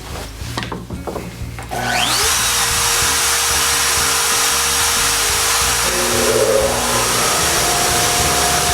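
CNC router spindle spinning up with a rising whine about two seconds in, then running steadily with the 1/4-inch end mill cutting wood. Background music plays underneath.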